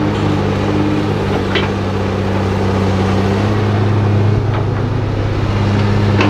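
Komatsu PC300LC crawler excavator's six-cylinder diesel engine running steadily with a low, even hum while the machine swings its upper body.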